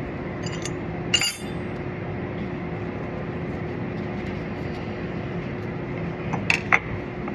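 A single ringing metal clink about a second in, from metal tools or parts being handled, with two lighter clicks near the end. A steady background hum with one constant tone runs underneath.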